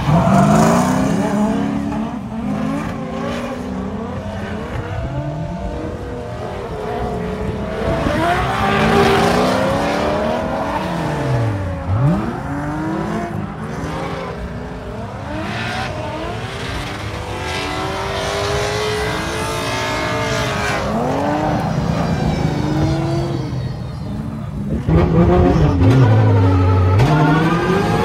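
Drift cars sliding in tandem: engines revving up and down repeatedly as the drivers work the throttle, with tyre squeal. About 25 seconds in it turns louder, one engine heard close up.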